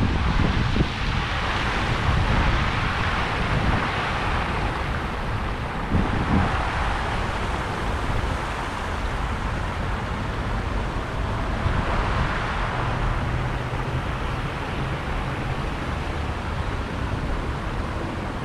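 Wind rumbling on the microphone over a steady rush of splashing fountain water and passing street traffic.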